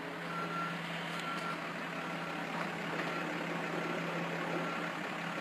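A vehicle backup alarm beeping evenly at one pitch, over the low steady hum of an idling engine.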